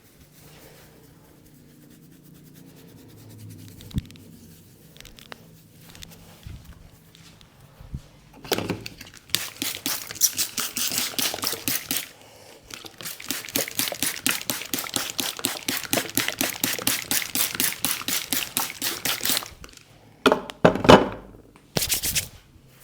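Hands striking in a fast percussive massage: a long run of quick, sharp slaps, several a second, starting about eight seconds in, with a brief pause and stopping near twenty seconds. A few louder slaps follow near the end.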